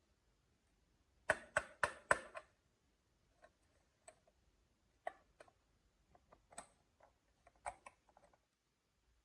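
Marbles clacking on a wooden HABA marble run: a quick run of four sharp clicks about a second in, then scattered lighter clicks and taps as they drop and roll on through the track.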